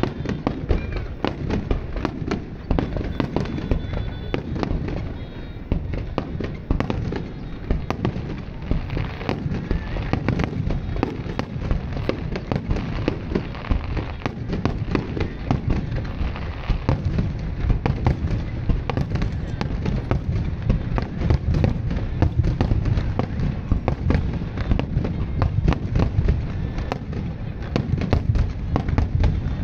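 Fireworks display: aerial shells bursting in quick succession, a near-continuous barrage of bangs with heavy low booms.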